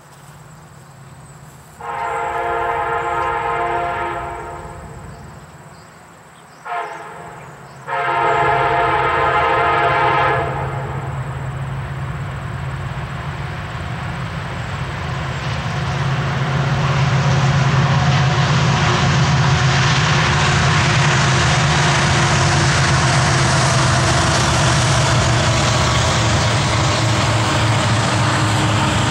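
Union Pacific freight locomotive horn sounding a chord of several notes: a long blast, a brief toot, then another long blast. Then the train's low rumble builds and holds steady as the freight cars roll past.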